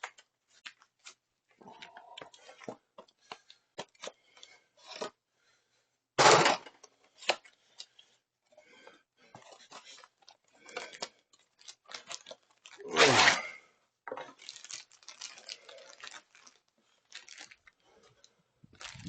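New parts' packaging being torn open and rustled, with scattered small clicks and knocks as the parts are handled. There are two louder crackling rustles, about six and thirteen seconds in.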